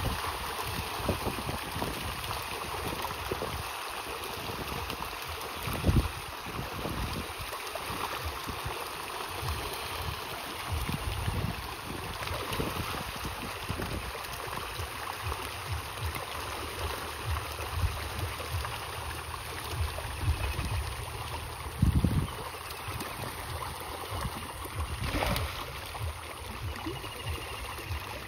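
Water gurgling and splashing, with low rumbling throughout and a few sharp thumps, the loudest about 6 and 22 seconds in.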